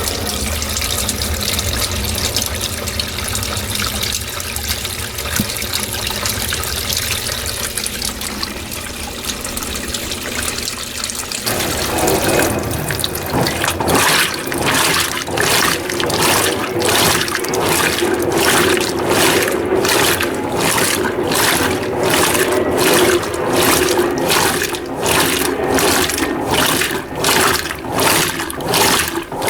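Mueller Energy 8 kg top-load washing machine filling with water at the start of a cycle: a steady rush of inflowing water. About twelve seconds in the sound changes to a regular pulsing swish, somewhat more than one pulse a second.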